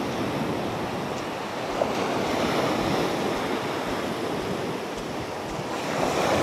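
Sea surf breaking and washing up a sandy beach, in gentle swells, with wind buffeting the microphone.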